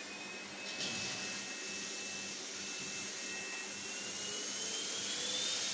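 Riino R8 cordless cyclone vacuum cleaner running with its brush attachment fitted. It makes a steady rushing sound with a thin whine that rises in pitch toward the end, and there is a single click about a second in.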